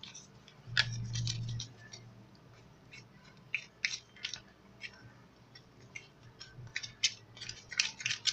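Small spoon stirring a sticky flour-and-toothpaste paste in a bowl, making irregular scraping clicks against the bowl. A brief low hum sounds about a second in.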